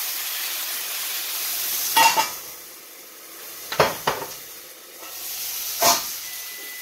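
Wine and meat juices sizzling in a hot cast-iron skillet around a seared rib steak, broken by sharp metal clanks about two, four and six seconds in as a stainless steel lid goes onto the pan and comes off again. The sizzle dulls while the lid is on and comes back when it is lifted.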